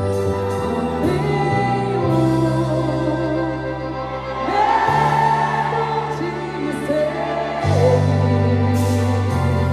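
Music with singing: a song with held bass notes that change every one to three seconds under a sung melody.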